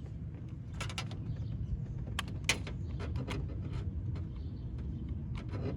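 Scattered clicks and light knocks of a car's rear-door latch and child-lock mechanism being handled, over a steady low rumble.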